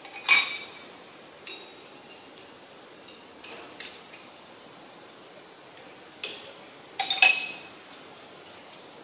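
Steel spanners and nuts clinking against each other and the engine block while head studs are fitted: a sharp ringing clink just after the start, a few light taps, then another cluster of clinks about 7 seconds in.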